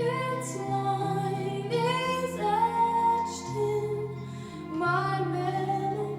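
Music playing: a woman singing a slow melody over guitar and low sustained accompaniment.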